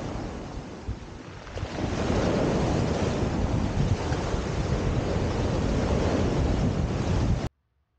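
Sea surf breaking and washing over a pebble beach, with wind buffeting the microphone. It dips briefly about a second in, swells again, and cuts off abruptly near the end.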